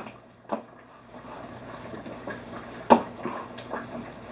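Long wooden stick stirring and mashing thick asida dough in a steel pot, with wet sticky stirring sounds. The stick knocks against the pot about half a second in and more loudly near three seconds, followed by a few softer taps.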